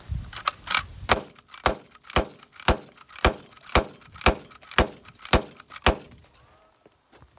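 Uberti 1873 Winchester short rifle, a lever-action replica, speed-fired: about ten shots roughly half a second apart, the lever cycled between each. The firing stops about six seconds in.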